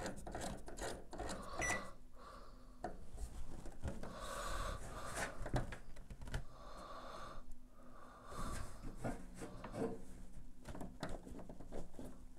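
Soft clicking of a Samsung MG23K3614AK microwave's rotary control knob as it is turned and pressed to set the time, with one short electronic beep about two seconds in and a few breaths in between.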